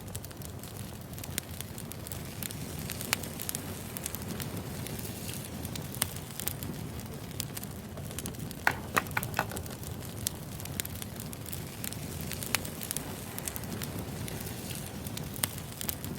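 Wood fire burning with a steady low rush and scattered sharp crackles and pops, including a quick run of louder pops about halfway through.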